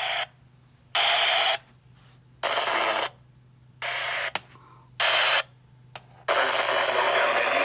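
NOAA Weather Radio EAS digital data bursts (SAME code) over a hissy radio signal: a string of short, harsh buzzing bursts about every second and a half, then steady hiss near the end.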